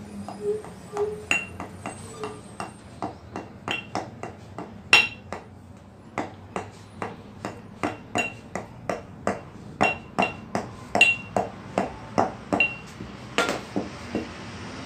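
Small hammer tapping a rubber oil seal (80-100-16) into the steel bearing housing of a Shaktiman rotavator: a quick, steady run of metal taps, about three a second, some ringing briefly.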